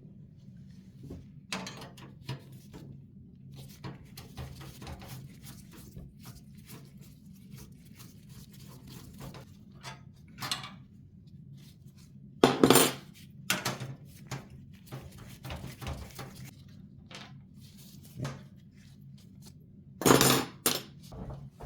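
Hard computer parts and small metal pieces being handled: a run of scattered clicks, taps and light metallic clinks. Two louder clattering knocks come about twelve and twenty seconds in, over a low steady hum.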